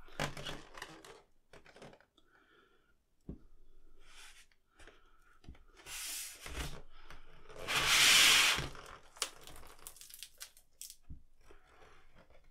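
White vinyl wrap sheet rustling and crinkling under the hands as it is rolled around a plastic tube, with small taps and clicks. A short rasp about six seconds in and a louder one-second tearing-like rasp about eight seconds in, as the vinyl pulls free of the table.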